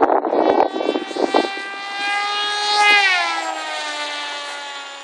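Electric motor and propeller of an Assassin foam RC flying wing running at full throttle, a high whine with many overtones. It gets loudest about three seconds in, then its pitch drops and it fades as the plane passes and flies away. Some rustling and knocks come in the first second and a half.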